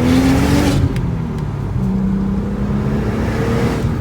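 Audi RS4's twin-turbo V6 revving up under acceleration, then the revs drop sharply about a second in at a gear change and the engine pulls on steadily in the next gear.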